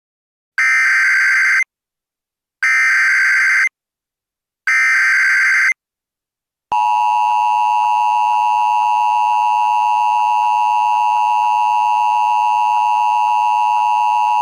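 Emergency Alert System alert opening: three bursts of SAME header data tones, each about a second long, then the dual-tone EAS attention signal held steady for about eight seconds. This is the signal that an emergency broadcast message is about to begin.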